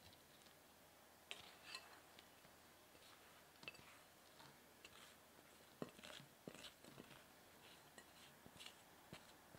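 Faint sticky crackling of shaggy bread dough with frozen berries sliding and dropping out of a glass bowl onto a silicone baking mat, with a few soft knocks about six seconds in.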